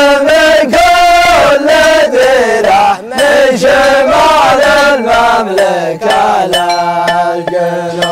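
A man chanting an Arabic song line in long drawn-out notes that rise and fall. Near the end he holds one low note in short rapid pulses.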